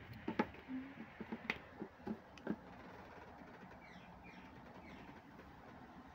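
Light clicks and knocks of a capsule coffee machine's plastic and chrome body being handled and turned over, several in quick succession in the first two and a half seconds. A few faint high descending chirps follow near the middle.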